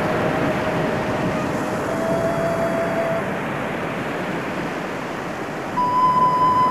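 Ambient music: a steady rushing noise under long, held pure tones. A lower note fades out about three seconds in, and a higher, louder note comes in near the end.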